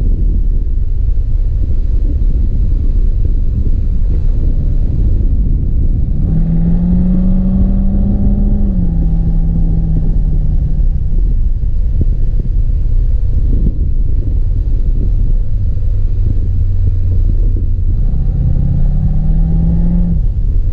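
C4 Corvette's V8 engine running under a heavy low rumble. The revs climb about six seconds in, step down and ease off, then climb again near the end.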